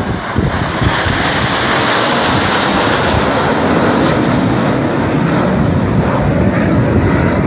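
A formation of seven jet aircraft passing overhead: a loud, steady rush of jet-engine noise that builds at the start and begins to ease near the end.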